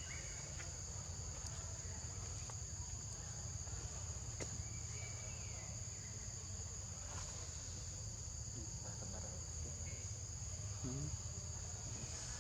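Insects droning steadily in a high-pitched, unbroken buzz, with a low rumble underneath and a few faint short calls here and there.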